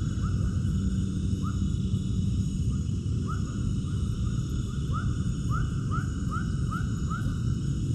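Short rising animal calls repeated over a steady low rumble, coming quicker toward the end.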